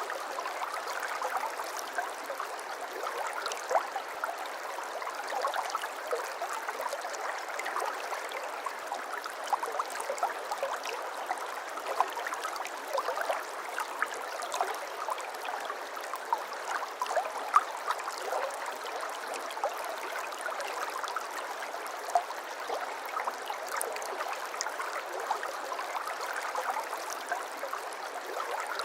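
Shallow stream water flowing and babbling steadily, with many small splashes and trickles.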